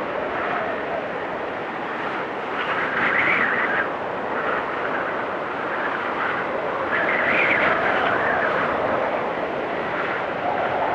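Wind blowing in gusts, with a drifting pitch that rises and falls. It swells about three seconds in and again around seven seconds.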